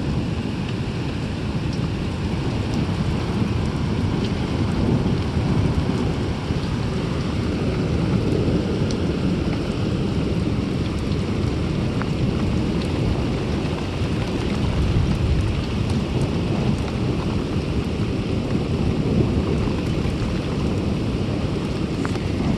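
Steady heavy rain in a thunderstorm, with a continuous low rumble of thunder under it and scattered drop ticks.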